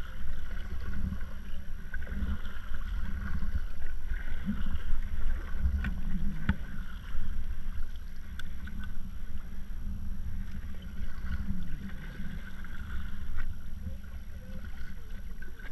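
Small outboard motor on a fishing kayak running steadily under way, a low drone with a higher whine riding above it.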